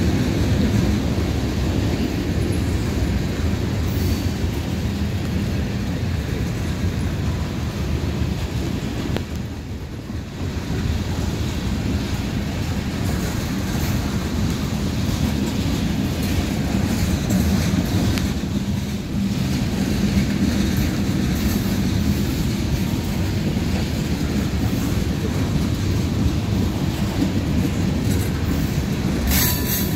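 Freight cars rolling past at close range: a steady rumble and clatter of steel wheels over the rail joints. A high-pitched wheel squeal sets in near the end.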